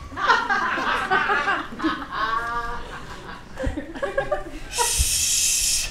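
Laughter, in a few bursts, followed near the end by a loud hissing noise lasting about a second that cuts off abruptly.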